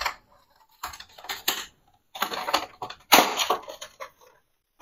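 Redmi SonicBass Wireless Earphones 2 neckband being pulled out of its white packaging tray: several short bursts of rustling and light clattering as the band, cable and earpieces rub and knock against the tray, with brief pauses between.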